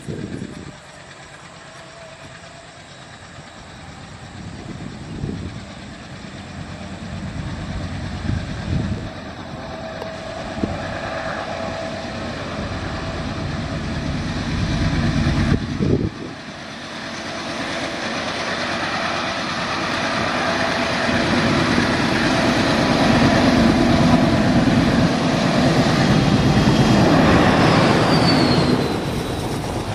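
ALCO WDG-3A diesel locomotive's 16-cylinder engine running under load as it hauls a passenger train, growing steadily louder as it approaches, then passing close by with the rumble of wheels on the rails.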